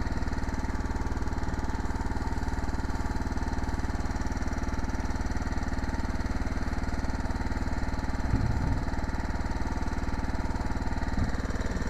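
Small engine running steadily at a constant speed with a fast, even chugging pulse.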